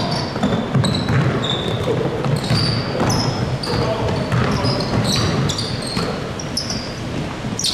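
Basketball game in a gym: the ball bouncing on the court amid many short, high-pitched sneaker squeaks, with players' and spectators' voices underneath.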